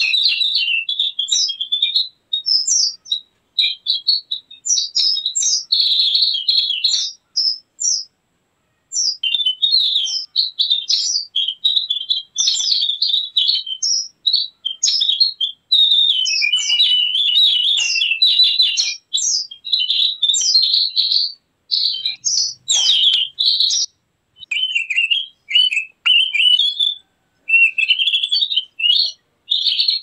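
Javan grey-throated white-eye (opior Jawa) singing: long runs of rapid, high twittering and chattering notes, broken by short pauses, the longest about eight seconds in. It is a recording played as a lure and master song for the species.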